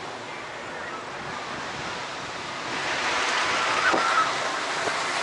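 Steady rushing hiss of wind, growing louder a little over halfway through, with a brief faint squeak about four seconds in.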